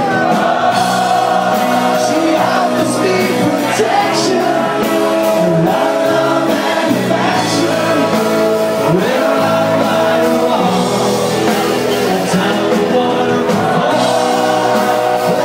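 Live rock band playing, with a lead vocalist singing over electric guitar, bass guitar and drums.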